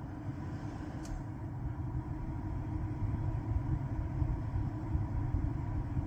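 Steady low background rumble with a faint steady whine, and a light click about a second in.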